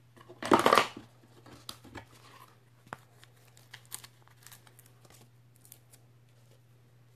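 Paper card pieces and adhesive handled on a craft table: a short, loud tearing-like rustle about half a second in, then light paper rustles and small clicks that die away near the end.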